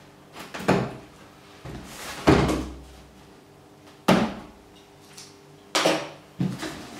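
Cardboard shipping box being opened and handled: about five separate thumps and scrapes of cardboard, the loudest about two seconds in.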